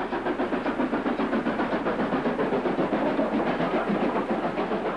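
Stanier Class 5 two-cylinder 4-6-0 steam locomotive working hard up a steep gradient, its exhaust beating in a fast, even rhythm of about five or six beats a second as it passes with its coaches.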